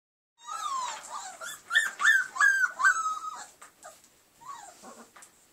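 Newborn Doberman puppies whimpering: a quick run of short, high-pitched squealing cries that bend up and down in pitch, fading after about three seconds, with one fainter cry near the end.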